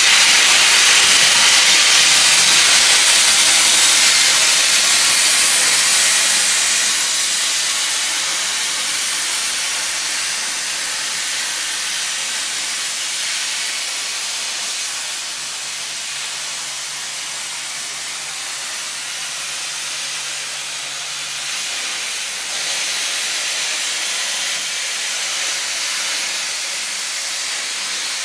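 CNC plasma cutter torch cutting: a loud, steady hiss of arc and compressed air that starts suddenly and eases slightly after about six seconds. A faint low hum comes in partway through and stops about two-thirds of the way in.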